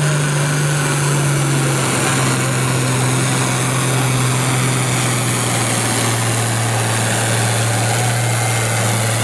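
Turbocharged diesel engine of a red International Harvester Farmall tractor running flat out under load as it drags a weight-transfer pulling sled. The steady engine note sinks slowly in pitch as the engine lugs down under the sled's growing drag.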